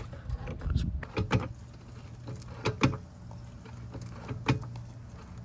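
Hydraulic floor jack being pumped to lift a car, its metal handle and saddle clicking, several times in close pairs, over a steady low hum.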